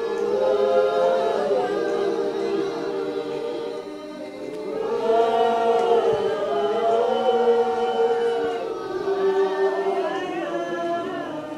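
Spiritual Baptist congregation singing a slow hymn together, unaccompanied, in long held notes, with a brief dip between phrases about four seconds in.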